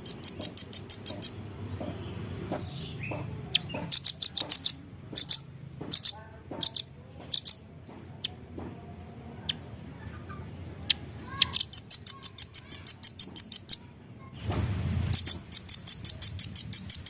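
Velvet-fronted nuthatch calling: rapid series of sharp, high chipping notes, about six to seven a second. The series come in several bursts of one to two and a half seconds, with a few single chips between them; the longest run falls a little past the middle.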